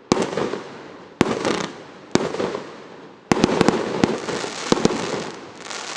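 Aerial fireworks bursting: single sharp bangs about once a second, then a quick volley of several bangs, each followed by a dense crackling fizz of gold crackling stars that fades away.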